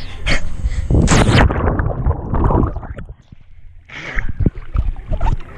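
Jump of about ten feet into an above-ground pool with the camera in hand: wind on the microphone during the fall, a loud splash about a second in, then gurgling, churning water as the camera goes under and comes back up to the surface.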